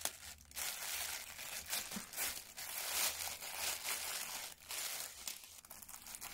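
Grey plastic poly mailer bag crinkling and rustling irregularly as hands open it and draw out the plastic-wrapped contents.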